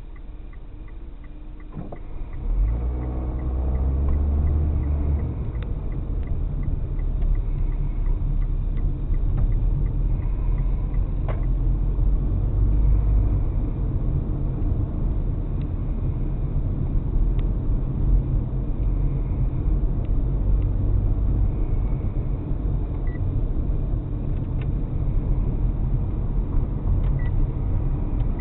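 Car pulling away: faint regular ticking for the first couple of seconds, then the engine rises in pitch as it accelerates, settling into a steady engine and road rumble while driving, heard from inside the car.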